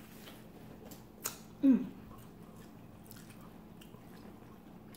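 A person chewing and biting food, with faint scattered clicks, a sharp click just over a second in, and a short hummed 'mm' soon after.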